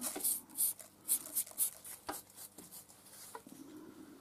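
Quick scratchy strokes of a brush sweeping metal swarf off a milling-machine vise, about six in the first second and a half. A few light clicks and taps follow.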